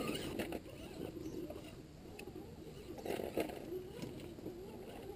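Electric motor of a 1:10 scale Axial SCX10 RC rock crawler whining, rising and falling in pitch with the throttle as it climbs over loose rocks, with a few light knocks of tyres and rocks.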